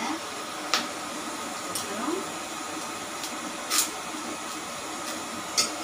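Hot oil in a steel wok on a gas stove hissing steadily, with four sharp pops spread through it.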